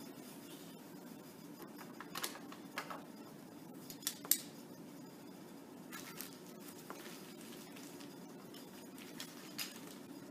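Wax crayon scratching on paper held on a clipboard: a handful of short, sharp strokes scattered through, over a steady low room hum.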